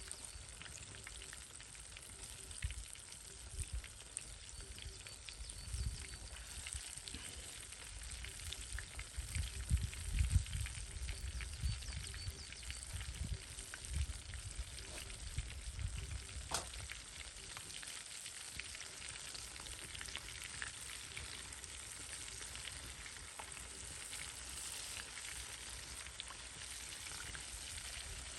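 Pieces of chicken deep-frying in hot oil, a steady sizzle with many small crackling pops. A few low thumps come in the middle.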